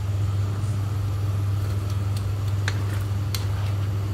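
Steady low hum of a running kitchen appliance motor, with a few light utensil clicks in the second half.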